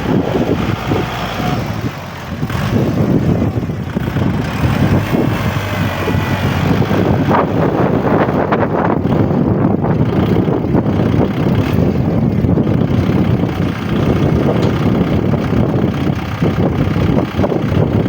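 Strong wind buffeting the microphone: a loud, continuous, gusting low rumble.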